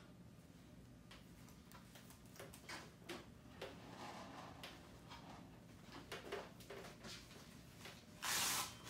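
Scattered light clicks and knocks from a wheeled vital-signs monitor and its cables being handled and adjusted, then a brief, louder rustle near the end.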